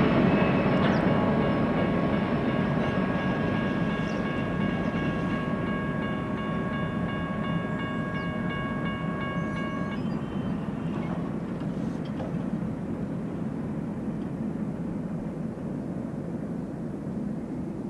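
Freight train rolling away, the steady rumble of its rail cars slowly fading. A sustained, high-pitched multi-tone whine rides over it and cuts off sharply about ten seconds in.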